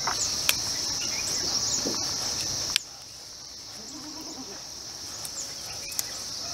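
Insects chirring steadily at a high pitch, with a few soft clicks. The background drops suddenly in level about three seconds in.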